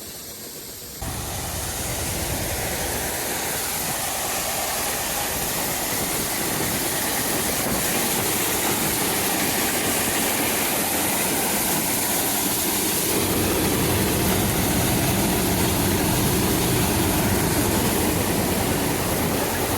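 Heavy diesel engine of farm harvest machinery running steadily, getting louder and deeper from about two-thirds of the way through.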